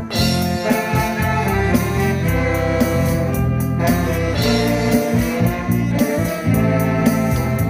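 An amateur band playing music live, with a steady drum beat under sustained instrumental chords.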